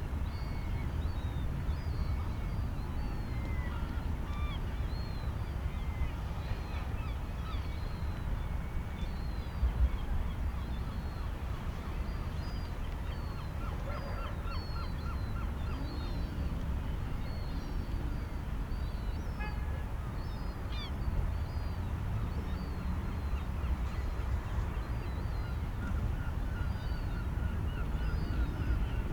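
Seagulls and other birds calling over and over, short high chirps with bouts of repeated honking calls, over a steady low rumble of sea and wind.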